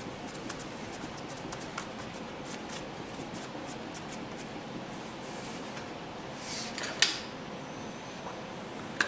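A hand tap in a tapping guide being turned into aluminium bar, cutting 5 mm × 0.8 threads, with light rubbing and rapid fine ticks. A sharp click about seven seconds in, as a one-handed trigger bar clamp is snapped on, and a smaller click near the end.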